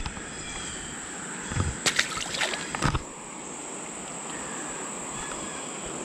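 A few light knocks and clatters against a kayak over a faint, steady outdoor hiss. The knocks come in a short cluster about two seconds in.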